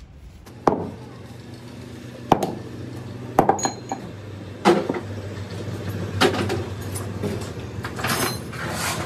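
Steel gearbox parts of a Hino FM 1J truck transmission clinking and knocking as a splined shaft and its gears are handled and set down on a heavy block: about half a dozen sharp metallic knocks, some ringing briefly. A steady low hum runs beneath from about a second in.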